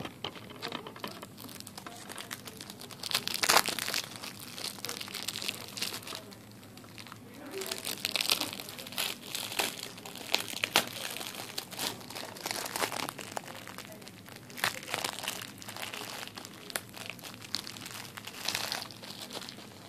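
Plastic wrapping on a boxed movie crinkling and tearing as it is worked open by hand, in irregular rustling bursts.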